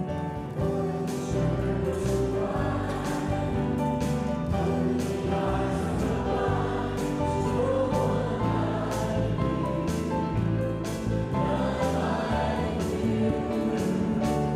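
Church worship song: lead singers on microphones with a choir, over instrumental accompaniment.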